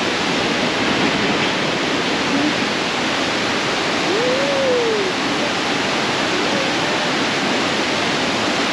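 Fast-flowing, flood-swollen river rushing: a loud, steady, even noise of running water. A faint voice is heard briefly about four seconds in.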